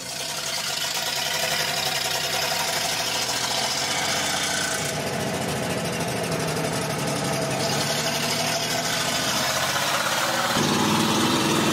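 Vintage Chevrolet pickup's engine running steadily at low speed, a pulsing exhaust note that fades in at the start and shifts in pitch about ten and a half seconds in.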